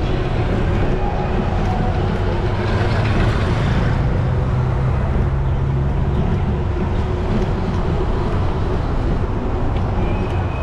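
Steady rumble and noise of a bicycle riding over a paved bike lane: tyre and frame vibration on the paving stones with wind on the microphone and street traffic behind it. A low engine-like drone joins in for a couple of seconds about three seconds in.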